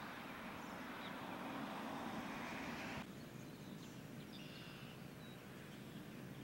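Faint outdoor ambience: a steady rushing noise that cuts off suddenly about three seconds in, followed by a quieter background with a few faint, high bird chirps.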